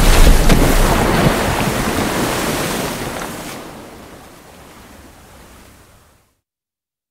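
A big water splash, its churning, sloshing water loud at first and then dying away gradually over about six seconds.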